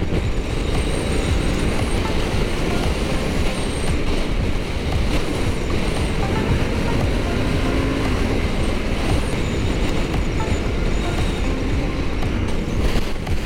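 Wind noise from a powerful, gusting wind buffeting a helmet-mounted camera on a Honda Africa Twin riding a loose gravel road. The wind is heavy and steady, with the motorcycle's running noise beneath it.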